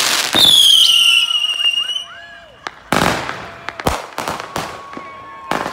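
Aerial consumer fireworks going off. A loud, high whistle from a whistling shot falls slightly in pitch for about a second and a half near the start. A run of sharp bangs and crackles from bursting shells follows.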